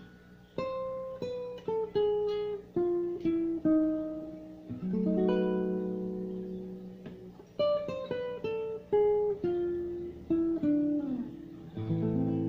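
Nylon-string classical guitar played fingerstyle: a slow melody of single plucked notes falling in short phrases, with a full chord ringing out about five seconds in. Near the end a note slides down in pitch before another chord rings.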